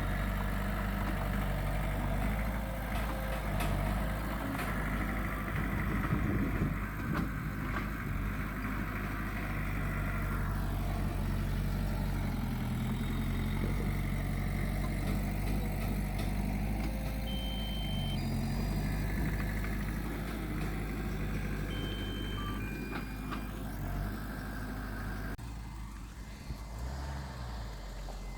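Diesel engines of earthmoving machinery, a bulldozer and dump trucks, running steadily with occasional clanks. A few short high beeps, like a reversing alarm, sound about two-thirds of the way in. The engine sound drops near the end.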